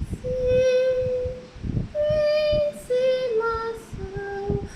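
Soprano recorder playing a slow phrase of about five separately tongued, steady notes: one step up, then stepping down, using left-hand fingering only.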